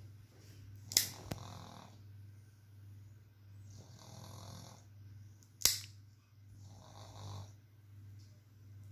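Plier-style pet nail clippers snap shut twice, sharp clicks about a second in and again about halfway through, as they cut a Boston terrier's claws. Between the snaps the dog breathes heavily with a snore-like sound about every three seconds.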